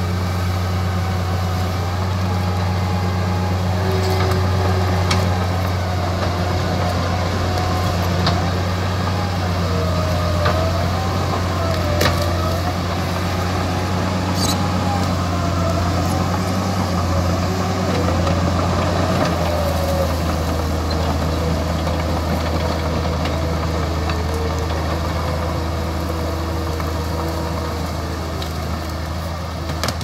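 Diesel engine of a small crawler bulldozer running hard under load as it pushes over trees and brush, with its steady low note dropping slightly a little past the middle. A wavering higher whine rides above it, with a few sharp knocks.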